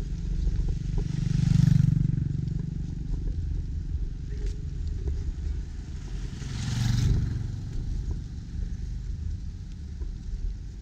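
Motor scooters passing on a narrow road over a steady low rumble: one swells and fades about a second and a half in, and a second, oncoming scooter grows louder and passes about seven seconds in.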